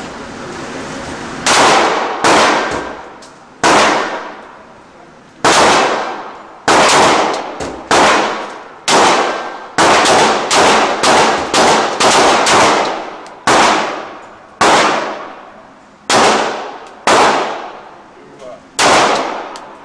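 Springfield XD 9 mm semi-automatic pistol firing about twenty shots, some spaced out and some in quick strings, each with a long echoing decay in an indoor range.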